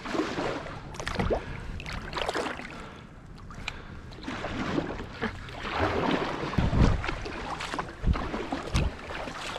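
Kayak paddle strokes, the blade dipping and splashing in the water about once a second, with a few dull thumps in the second half.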